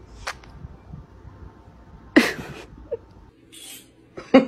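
A cat sneezing once, a short sharp burst about two seconds in, over low room noise.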